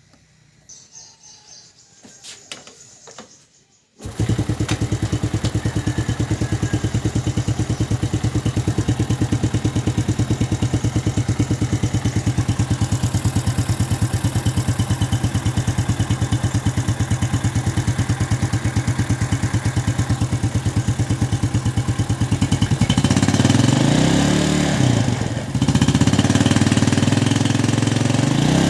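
Yamaha New Jupiter Z four-stroke single-cylinder motorcycle engine, just rebuilt after running rough and knocking, starting about four seconds in after a few small clicks and settling into a steady idle. Near the end the throttle is blipped twice, the engine note rising and falling each time.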